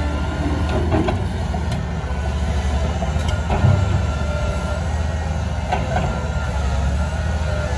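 Komatsu PC1250-8R hydraulic excavator's six-cylinder diesel engine running steadily with a deep drone while the boom, arm and bucket are moved hydraulically. A few light knocks come through, with one louder knock about halfway through.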